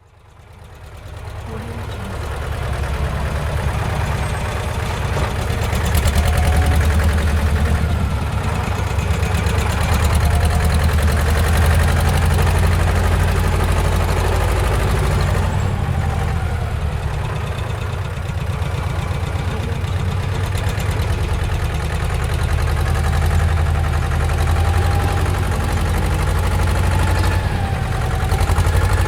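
Bulldozer's diesel engine running steadily, a heavy low rumble that fades in over the first couple of seconds. A faint wavering whine rises above it now and then.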